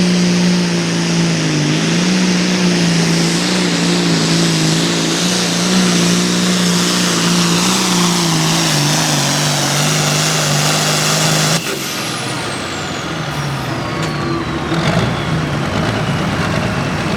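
Turbo-diesel hot farm pulling tractor running flat out under load down the track, its pitch sagging slightly as it pulls. About eleven and a half seconds in the engine is shut off abruptly, and the turbo's high whistle winds down, falling in pitch.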